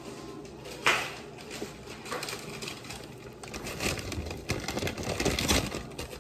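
Kitchen handling noises: a sharp click about a second in, then scattered rustling and light knocks that grow busier, with low thumps, toward the end.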